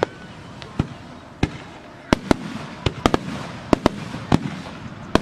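Fireworks display: about a dozen sharp bangs of fireworks bursting at irregular intervals, some in quick pairs and triplets, over a steady hiss.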